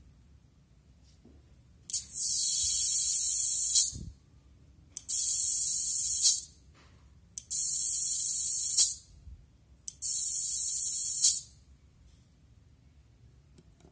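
Electronic air-brake sound-effect module playing a high-pitched hiss through a speaker, four times, each burst lasting one and a half to two seconds and ending with a brief louder puff, like a truck's air brakes releasing.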